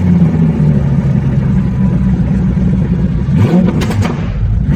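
Car engine running, with a short rise in revs about three and a half seconds in.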